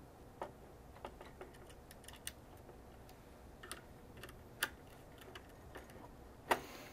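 Faint, irregular small clicks and taps of a small screwdriver working the screw terminals of a plastic plug-in power transformer, tightening the wires under the screws. The sharpest click comes near the end.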